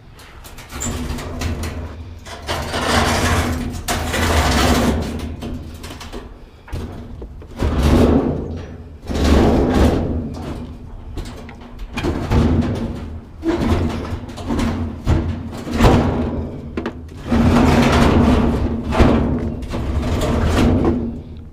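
Heavy metal handling of a discarded washing machine being moved and loaded for scrap: irregular knocks, bangs and scraping bursts every second or two over a low steady hum.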